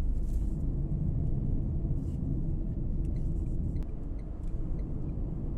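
Steady low rumble of a car driving on a highway, heard from inside the car: road and engine noise with no break.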